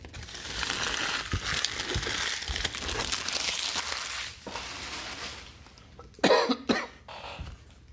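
A trading-card pack wrapper being torn open and crinkled for about four seconds. A little over six seconds in, a person coughs twice.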